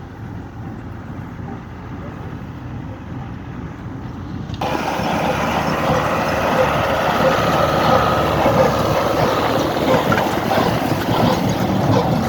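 New Holland 80-66 tractor's diesel engine running under load as it pulls a Nardi hay baler. About four and a half seconds in, the sound suddenly becomes much louder and fuller, with a busy mechanical clatter.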